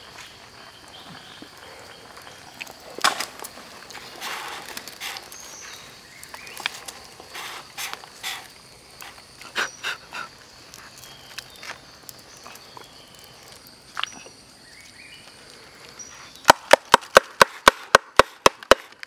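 Scattered scrapes and light knocks of a knife working at the mouth of a bamboo cooking tube. Near the end comes a quick run of about a dozen sharp, slightly ringing knocks, some five a second, on the hollow bamboo tube to shake the cooked meat and broth out onto a banana leaf.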